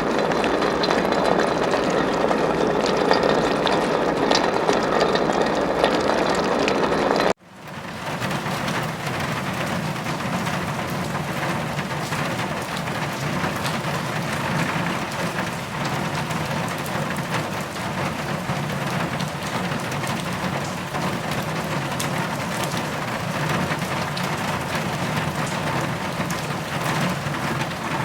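Rain falling steadily, heard as an even hiss. About seven seconds in it cuts off for a split second, then a different, slightly quieter rain recording with more low rumble carries on.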